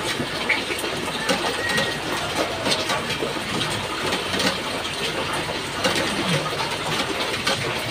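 A steady background rumble with many short, light clicks scattered through it.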